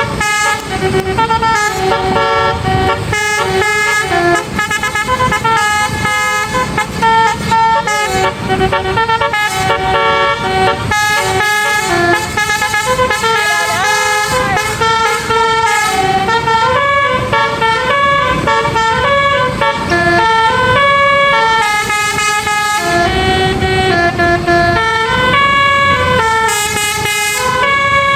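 Bus telolet horn, a Basuri multi-tone air horn, playing a tune of stepped, changing notes without a break, over vehicle engine and road noise.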